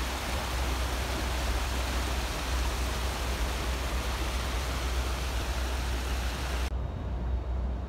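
Floodwater rushing and churning over railway tracks in a steady rush, with a low rumble underneath. The rushing cuts off suddenly about a second before the end, leaving only the low rumble.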